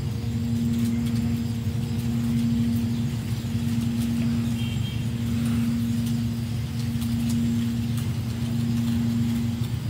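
A motor running steadily: a low, even hum with one strong steady tone over a low rumble.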